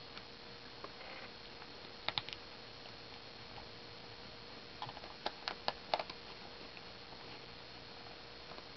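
Puppy chewing on a hairbrush, its teeth clicking against the bristles: three quick clicks about two seconds in, then a faster cluster of sharper clicks around five to six seconds.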